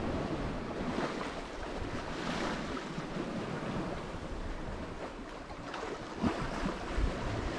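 Wind and sea noise aboard a sailboat running under spinnaker: a steady rush of wind and waves, with wind buffeting the microphone more strongly near the end.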